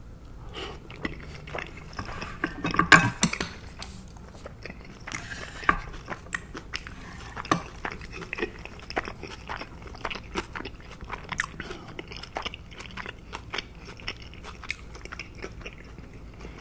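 Close-miked chewing: a steady run of wet mouth clicks and crunches, densest and loudest about three seconds in.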